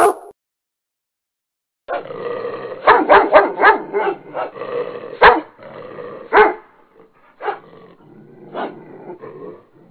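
A dog barking repeatedly, several sharp barks spaced irregularly with rougher sounds between them, starting about two seconds in.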